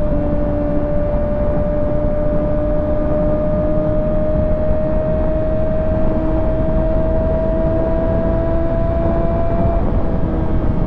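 Kawasaki ZX6R 636's inline-four engine running steadily at highway speed under a light, constant throttle. Its pitch creeps slowly upward and dips slightly near the end, over a heavy rush of wind.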